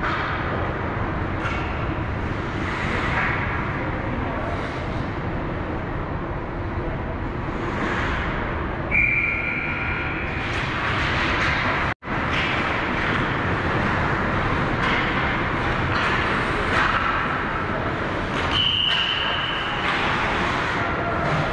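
Hockey rink game noise: a steady wash of arena sound with faint distant voices. Two short referee's whistle blasts sound, one about nine seconds in and a higher one near nineteen seconds. The sound cuts out for an instant about halfway.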